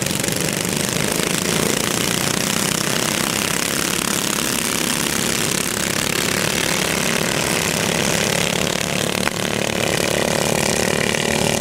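Go-kart engines of several karts racing together on a dirt track, a steady small-engine drone.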